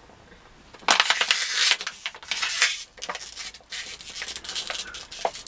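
Thin plastic water bottle being twisted tight with the cap on, crackling and crunching loudly as it is wrung to build pressure inside. A long run of crackles starts about a second in, then shorter bursts and scattered clicks follow.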